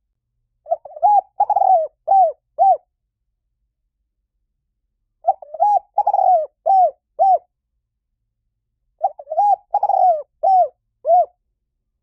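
Spotted dove singing: three cooing phrases, each about two seconds of four or five short arched coos, separated by pauses of a couple of seconds.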